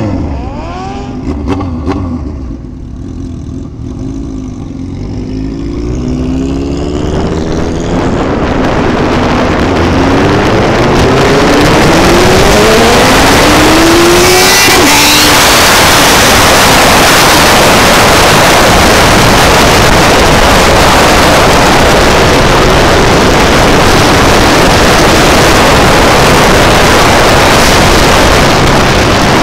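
Sport motorcycle pulling away and accelerating hard through several gears, its engine pitch rising in steps over the first fifteen seconds or so. From about ten seconds in, loud steady wind noise on the microphone at speed covers the engine.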